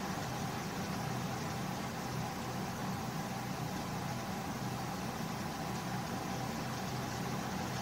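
Steady low hum with an even hiss, unchanging and without distinct events.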